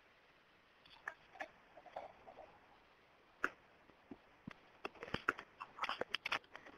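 Faint scattered clicks and taps on an otherwise quiet line, becoming more frequent in the second half.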